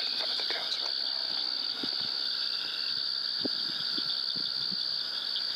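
A chorus of night insects trilling steadily and high-pitched, with a few faint soft taps underneath.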